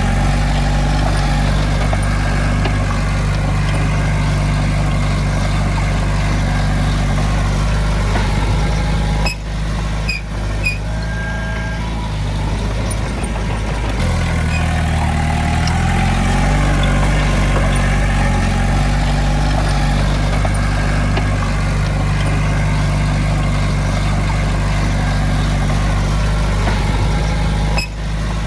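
Heavy diesel engine of earthmoving machinery running steadily, its note shifting briefly about halfway through.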